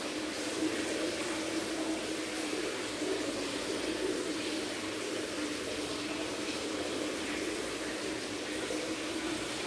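Aquarium filter running: a steady low hum with a constant trickle and bubbling of water.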